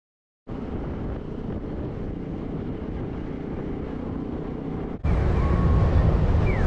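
Steady wind and road noise while riding a motor scooter through city traffic. About five seconds in it cuts to louder street noise at a busy city crossing, with a few faint short chirps.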